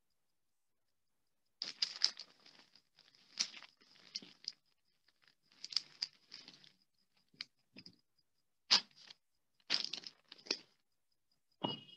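A fabric-faced paper sheet being handled and pressed down as its glued edge is stuck: rustling and crinkling in about eight short, separate bursts.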